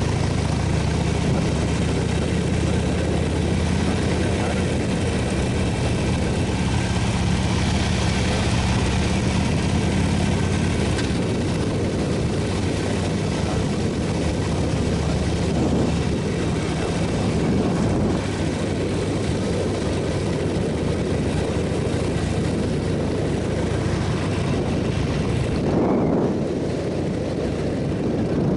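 Motorcycle engine running steadily under way, with wind and road noise over it; the engine note holds steady, then shifts about eleven seconds in.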